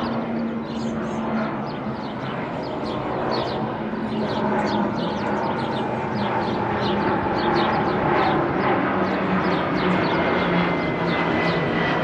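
Small birds chirping repeatedly in quick, sharp notes over a steady engine drone that grows louder through the second half, with a thin high whine slowly falling in pitch near the end.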